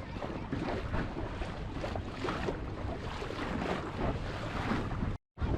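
Lake water splashing and rushing along the hull of a moving boat, in uneven surges, with wind buffeting the microphone. The sound cuts out completely for a moment near the end.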